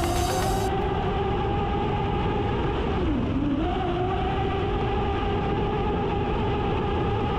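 Electric RC catamaran speedboat running at speed on 6S power, heard from onboard: a steady motor whine over rushing water and wind noise. The whine dips in pitch briefly about three seconds in, then climbs back.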